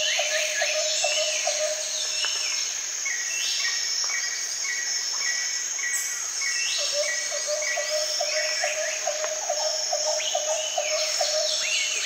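Nature ambience of insects trilling steadily with birds calling over it: runs of quick repeated chirps and short sweeping calls now and then.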